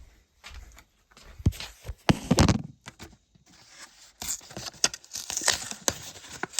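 A Hot Wheels blister pack being torn open by hand: cardboard tearing and plastic packaging crinkling, with sharp snaps and one loud rip about two seconds in, then steady rustling.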